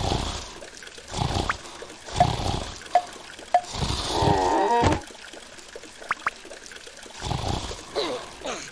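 Nonverbal cartoon character vocalizations, with short grunts and groans and a wavering, pitch-bending cry a little after four seconds in, mixed with brief cartoon sound effects.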